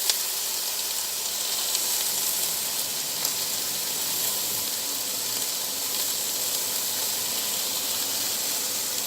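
Sliced chicken frying in olive oil in a pan: a steady sizzling hiss with a few small pops.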